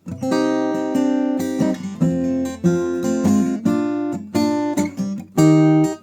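Newtone Gypsy Road GA 45 guitar played unplugged: a run of plucked and strummed chords, each ringing briefly before the next, after a short pause at the start.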